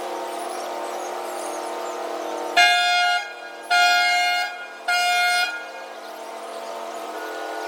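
Ship's horn giving three short blasts about a second apart, over a steady hum.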